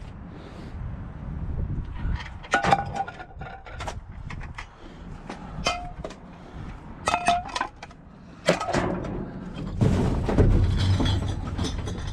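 Metal pans clanking together as they are handled, several separate knocks with a brief metallic ring. Near the end a steadier rumbling, rustling noise comes in.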